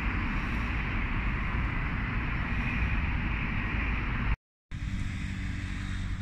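Steady city street traffic noise, a dense rumble of passing vehicles. About four seconds in the sound drops out to silence for a moment, then resumes as a quieter, steadier low hum.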